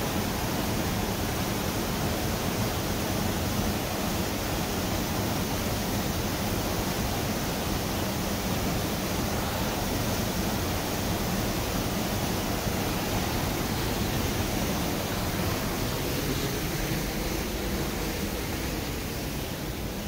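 Steady rushing of Ryuzu Falls, water tumbling down the cascade, an even wash of noise that eases slightly near the end.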